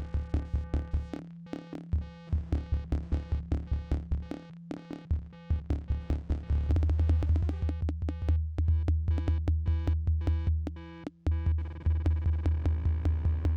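Live electronic jam on Korg Volca synthesizers and drum machine: a fast, even run of drum-machine hits over a low synth bass line and held synth tones. The bass drops out for a moment near the end, then comes back.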